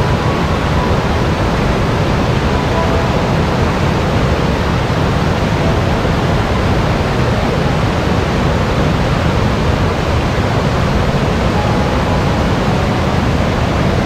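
Whitewater rushing over the rock shelf at the head of a waterfall: a loud, steady, unbroken rush of water.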